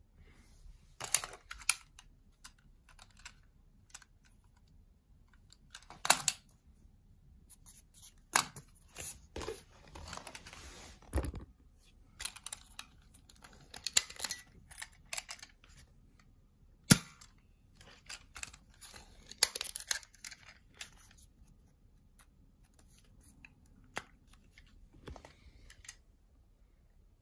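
Handling noises of a small plastic X-Shot foam-dart blaster: sharp plastic clicks and short scraping and rustling sounds at uneven intervals as darts are loaded and the orange priming handle is pulled back.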